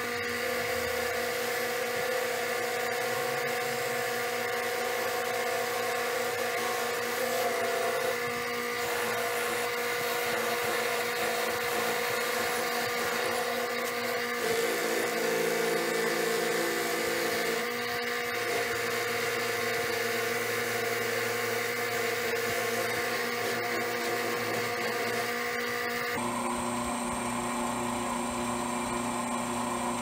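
Lathe motor running steadily with buffing wheels spinning on the spindle while an Alumilite pen tube is buffed against them. The whine changes briefly in the middle and shifts to a different tone near the end.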